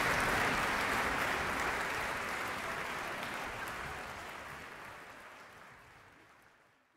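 Concert hall audience applauding, the applause fading out steadily to silence.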